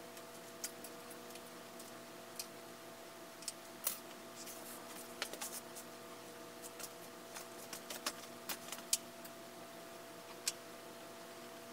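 Scattered small clicks and taps at irregular intervals from hands handling small parts and tools, over a faint steady hum.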